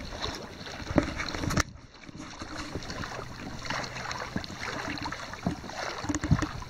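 Water splashing and rushing along the hull of a Hobie i12s pedal kayak moving at speed, with a couple of light knocks.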